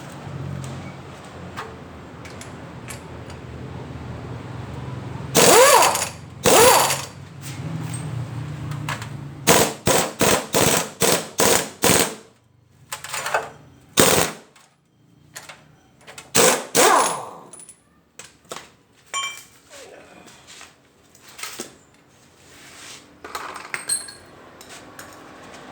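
Air impact wrench used in short, loud bursts while a transmission is being dismantled, with a quick run of about eight sharp strokes in the middle.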